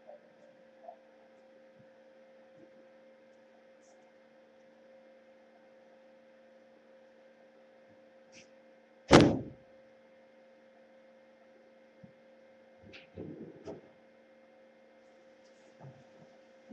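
Steady electrical hum from a surveillance camera's audio. One loud sharp thump comes about nine seconds in, and a few fainter knocks follow around thirteen seconds.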